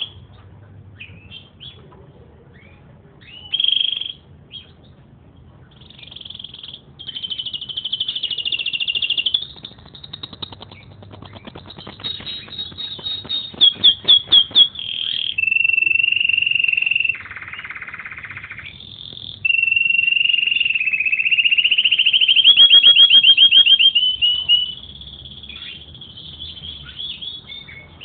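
Domestic canary singing: a few short chirps, then from about six seconds a long, loud song of rolling trills and fast repeated notes, with a harsh buzzy note in the middle, falling back to scattered chirps near the end.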